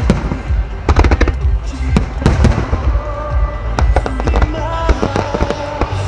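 Starmine fireworks barrage: aerial shells bursting in quick clusters of booms and sharp cracks, about one cluster a second, over a continuous low rumble. Music plays underneath, its held notes plain in the second half.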